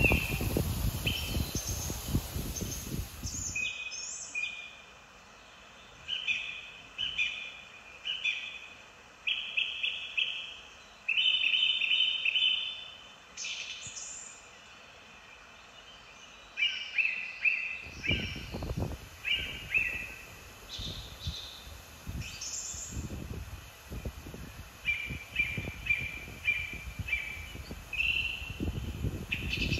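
Small birds calling in many short, high chirps that come in quick runs. Wind buffets the microphone in the first few seconds and again through the second half.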